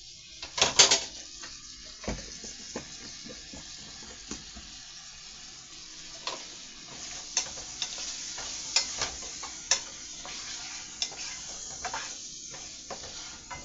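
Pieces of fried chicken sizzling in a pot while a utensil stirs them, knocking and scraping against the pot now and then, with a louder clatter about a second in.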